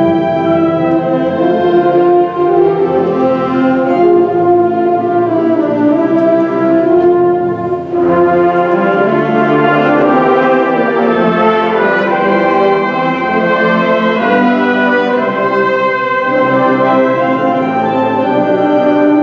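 Concert band of brass, woodwinds and percussion playing held, chorale-like chords, with the brass prominent. There is a brief break between phrases about eight seconds in.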